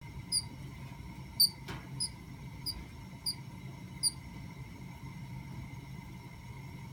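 A pet bird making short, high squeaks, six of them in the first four seconds and then none. The bird has avian gastric yeast (AGY), and the owner suspects the squeaking may point to a further illness.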